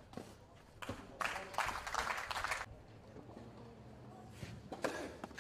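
A few sharp knocks in the first second, then a voice speaking for about a second and a half, and a short burst of sound near the end.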